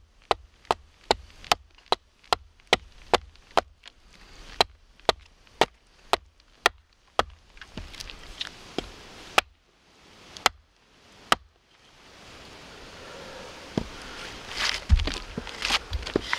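Small axe chopping into a green gray-birch crook set on a wooden stump block, cutting out a spoon blank. Quick, even chops come about two and a half a second, slow to a handful of spaced strikes and stop about eleven seconds in. Rustling and a couple of low thumps follow.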